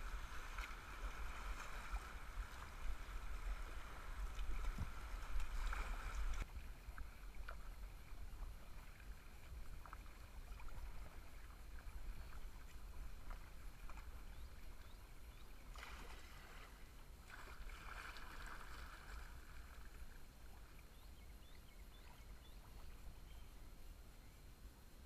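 Rushing river water churning around a kayak's hull below a tube chute, which cuts off suddenly about six seconds in. Quieter paddle strokes and light splashes on calm water follow, with a louder stretch of splashing about sixteen to nineteen seconds in.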